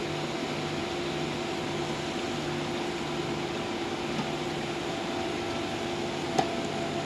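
Electric inflation fans of an inflatable hail-protection car cover running steadily with a constant hum as they blow the cover up. A single short click about six seconds in.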